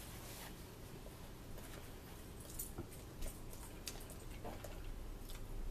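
Faint scattered clicks and rustles of a paper napkin and food being handled at a table.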